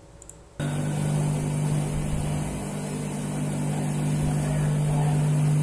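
Cylindrical grinding machine running: a steady motor hum under an even hiss from the grinding wheel working the rotating workpiece. It starts abruptly about half a second in.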